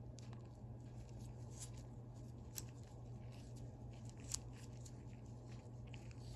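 Small metal parts of a disassembled ratchet being handled, with faint light ticks and two sharper clicks, about two and a half seconds and four seconds in, over a steady low hum.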